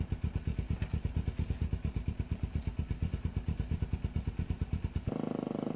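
Motorcycle engine idling with an even, rapid beat of about a dozen pulses a second, still running with the bike down on its side. Near the end the beat turns faster and smoother, then cuts off.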